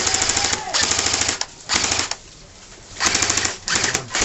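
Airsoft electric rifles firing full-auto, a rapid rattle in about four bursts broken by short pauses.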